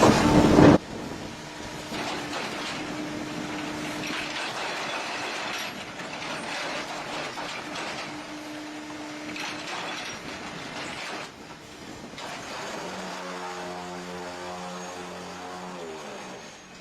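Concrete block (batako) press machine running. A loud burst of machine noise cuts off under a second in, then a steadier mechanical clatter continues. Near the end a motor hum comes in and falls in pitch as it winds down.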